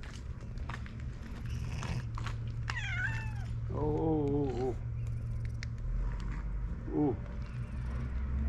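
Cat meowing: a long, wavering meow about four seconds in and a short one near seven seconds, with a higher falling call just before the long one.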